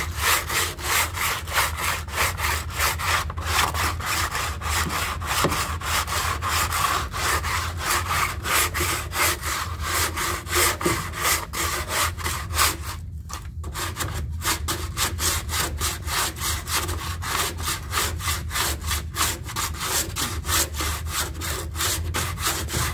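Hardened Bondo fiberglass filler being hand-sanded with 80-grit sandpaper on a drywall sanding tool. Fast, even back-and-forth scraping strokes, about three to four a second, with a brief pause about 13 seconds in.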